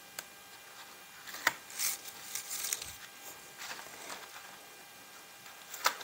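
Red cardstock being folded and pressed by hand into a box: soft paper rustles, with a sharp tap about a second and a half in and another near the end.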